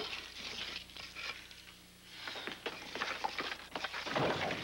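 Paper rustling and crinkling, with small irregular clicks and scrapes, as a brown paper bag is handled.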